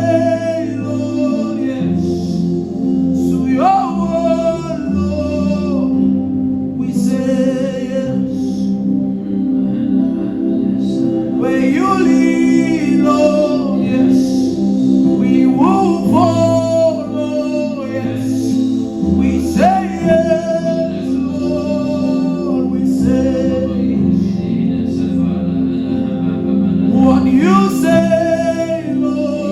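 Gospel worship song: singing in drawn-out phrases over sustained chords, with a bass that steps to a new note every few seconds.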